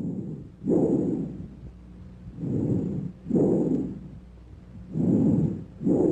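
Bronchial breath sounds heard through a stethoscope, about three breaths. Each breath is a shorter inspiratory rush, a brief silent gap, then a longer expiratory rush that fades away.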